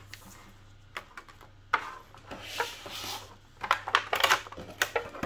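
Hands handling a plastic packaging tray and a paper instruction leaflet: scattered light clicks and taps, a short rustle in the middle, and a busier run of clicks and rustles in the last second and a half.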